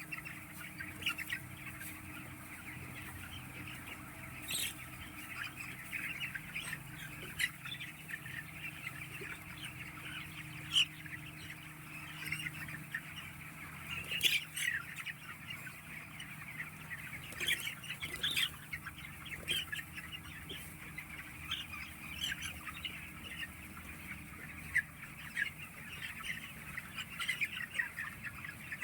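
A flock of chickens clucking and calling all together, with a louder, sharper call now and then, over a steady low hum.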